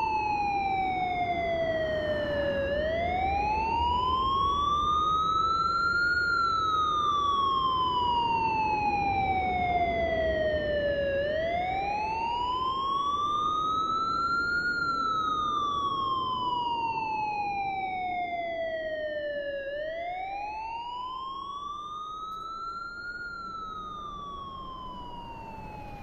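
Siren in a slow wail: each cycle rises quickly for about three and a half seconds, then falls for about five, three times in all, over a steady low noise. It fades out gradually over the last ten seconds or so.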